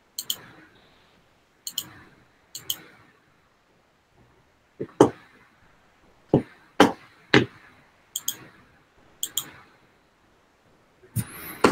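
An irregular series of sharp clicks and knocks, some in quick pairs, with a few duller thuds around the middle, over a quiet room.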